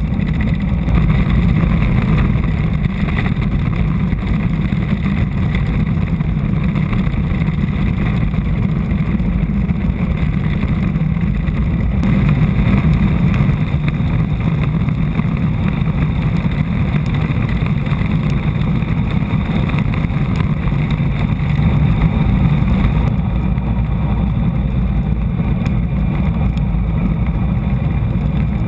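Steady rushing roar of a land yacht sailing fast: wind buffeting the onboard camera's microphone over the rumble of its wheels rolling across the hard, cracked lakebed.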